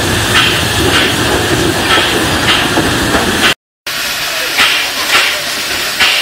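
TKt48 steam tank locomotive rumbling along slowly with short bursts of exhaust steam hiss about every half second. After a cut about three and a half seconds in, the locomotive stands hissing steam in intermittent bursts.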